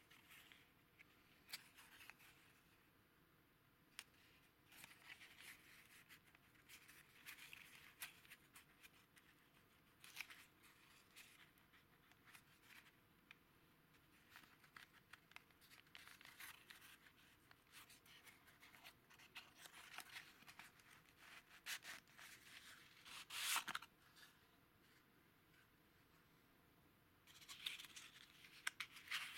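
Faint handling of an old cardboard valve box by hand: dry rustling, scraping and small clicks as the end flap is worked open and a corrugated cardboard sleeve is slid out, with one louder scrape about three-quarters of the way through.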